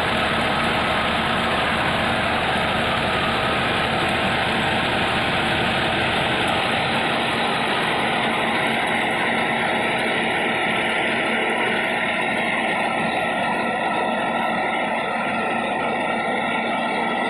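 Massey Ferguson tractor's diesel engine running steadily, its deepest rumble thinning out about seven seconds in.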